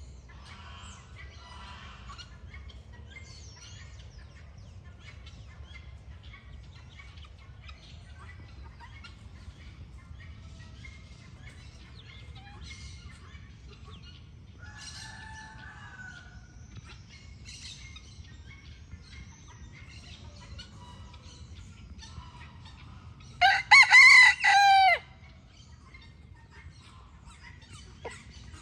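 A rooster crowing once, loud and about a second and a half long, near the end. Before it there are faint chirps of other birds and a fainter call about halfway through, over a low steady background rumble.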